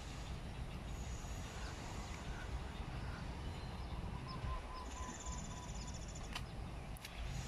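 Outdoor park ambience: a steady low rumble with faint bird calls over it, a short run of soft notes a little past the middle and a fast high trill about five seconds in.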